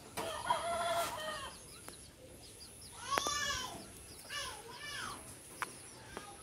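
Chickens calling: a drawn-out call near the start, a louder one about three seconds in, then two short clucks soon after.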